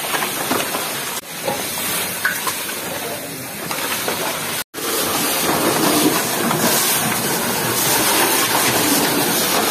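Fire hose nozzle spraying water: a steady hiss. It drops out briefly about a second in and again near the middle, and is a little louder after the second break.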